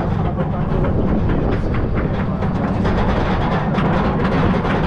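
Roller coaster train climbing its chain lift hill: a steady low rumble from the lift chain with a fast, slightly uneven clicking, about three clicks a second, from the anti-rollback ratchet.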